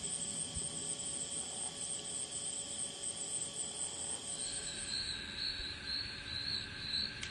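A steady chorus of singing insects, crickets and their kin, with several high continuous trills. About four seconds in, a second, pulsing insect song a little lower in pitch joins as the highest trill fades, and there is a brief click near the end.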